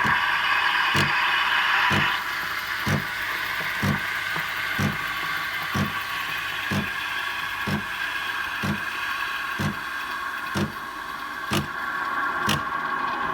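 Nespresso Creatista Plus steam wand frothing milk in the jug: a steady steam hiss, with the machine's pump pulsing in short regular knocks about once a second. The hiss drops to a softer level about two seconds in.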